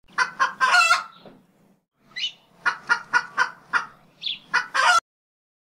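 Chicken squawking and clucking: two short squawks and a longer one, a pause, then a quick run of clucks at about four a second and a final long squawk that cuts off suddenly.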